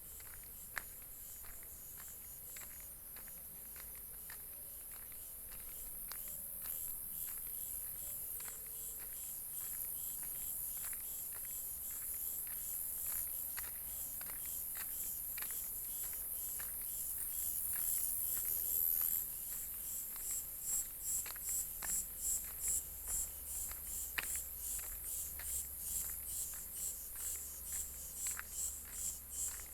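High-pitched chirring of insects, steady at first and then pulsing about twice a second through the last third, over a faint patter of small clicks.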